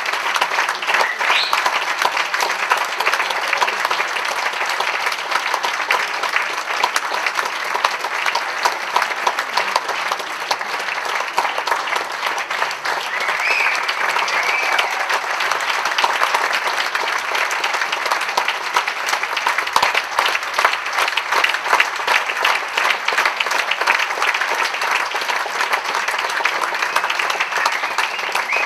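Audience applauding steadily: dense, even clapping that carries on without a break.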